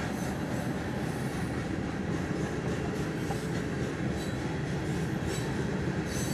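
Coal train's open hopper cars rolling past: a steady rumble of steel wheels on rail, with a faint high wheel squeal.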